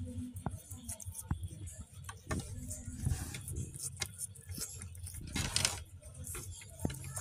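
Mother tabby cat licking her newborn kitten, still wet from birth: scattered wet clicks and rustles, with a longer scratchy rustle about five and a half seconds in.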